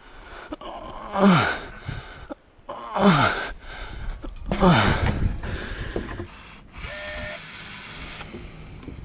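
People grunting and groaning with effort while lifting a heavy structural insulated wall panel: three loud groans, each falling in pitch, about two seconds apart.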